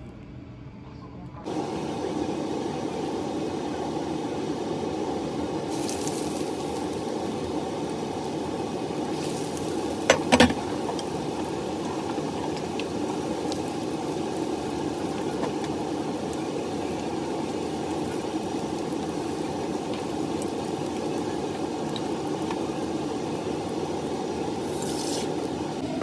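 Breaded croquettes deep-frying in a pan of hot oil: a steady sizzle and crackle of bubbling oil that starts about a second and a half in. A brief knock about ten seconds in.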